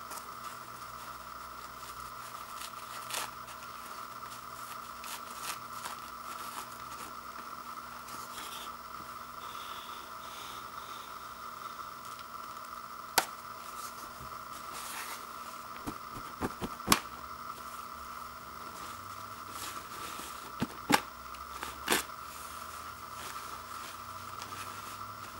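2-ply toilet paper being unrolled, torn and crumpled by hand: soft rustling with a few sharp clicks, the loudest in the second half. A steady faint hum runs underneath.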